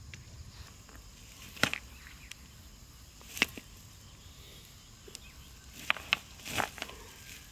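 A handful of sharp knocks at uneven intervals: one early, one near the middle, and a quick cluster of three near the end, the last of them drawn out like a scrape. Under them is a faint steady outdoor background.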